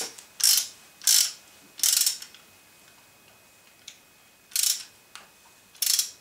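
Socket ratchet wrench clicking as it is swung back and forth to tighten a bolt. It comes in five short rasping bursts: three in quick succession, a pause of about two seconds, then two more.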